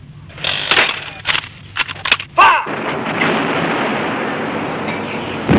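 Battle sound effects of gunfire and artillery: a quick run of sharp shots and bangs over the first two and a half seconds, then a steady dense din of continuous firing.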